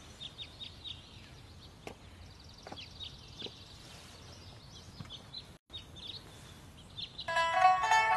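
Small birds chirping in short repeated calls over quiet outdoor ambience. About seven seconds in, a pipa begins to be plucked, starting a melody that is much louder than the birds.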